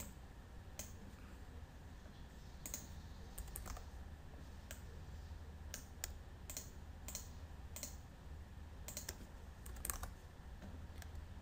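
Scattered clicks of a computer mouse and keyboard, a dozen or so spread irregularly through the stretch, over a steady low hum.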